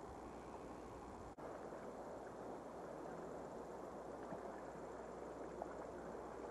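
Steady riverside background noise, a low even rush without distinct events, broken by a brief dropout with a click at a tape cut about one and a half seconds in.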